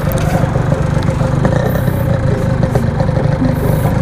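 Yamaha RX King 135 cc single-cylinder two-stroke engine running steadily through its stock-style aftermarket exhaust.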